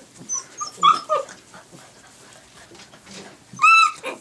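Six-week-old Bernese mountain dog puppies play-fighting: a few short high yips in the first second, then one loud, high, arching yelp near the end, a pup protesting a littermate's bite.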